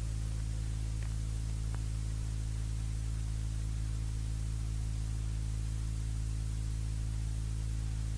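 Steady low electrical hum with an even hiss, unchanging throughout, with two faint ticks in the first two seconds.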